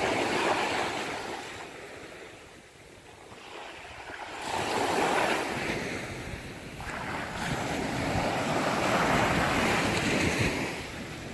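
Sea waves surging and washing against the jetty in slow swells that build and ease every few seconds, with some wind.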